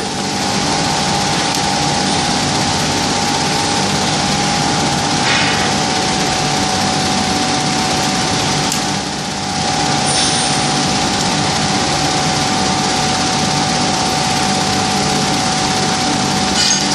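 Furnace scrap charging system running: a loud, steady machine din with a constant whine, dipping briefly about nine seconds in.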